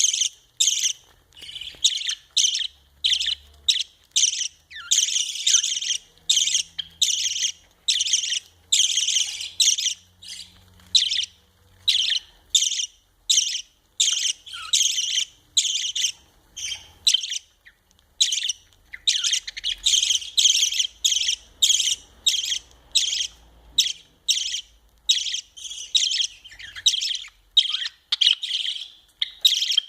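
Budgerigars chirping in short, repeated calls, about two a second, with a brief pause around the middle.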